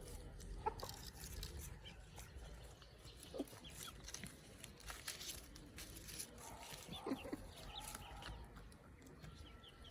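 Local chickens clucking softly, with scattered short calls and small clicks.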